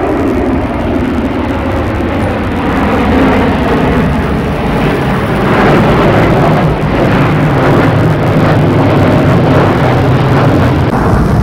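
Engine noise of a twin-engine jet airliner passing overhead: a loud, steady rumble that grows a little louder a few seconds in.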